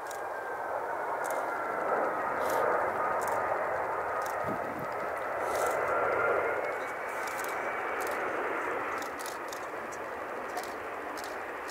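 Emirates Airbus A380 on short final to landing, its four jet engines giving a steady rushing noise with a whine that slides down in pitch and later back up, loudest a few seconds in as it passes.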